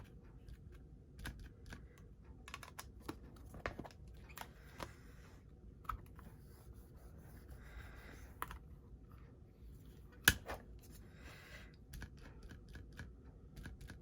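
Small taps, clicks and soft paper rustles of hand stamping: a stamp inked on an ink pad and pressed onto cardstock. One sharp knock stands out about ten seconds in.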